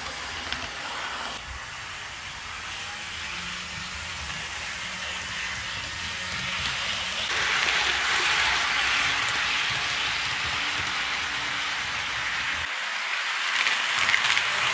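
HO scale model train running on track, the Athearn GP38-2 locomotive pulling covered hoppers and a boxcar: a steady rolling hiss and rattle of small wheels on rail, louder from about seven seconds in as the cars pass close, with a low hum underneath.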